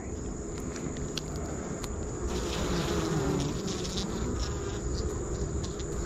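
Honey bees buzzing steadily on a frame of comb lifted from an open hive. The buzz grows louder and wavers around the middle as bees fly close.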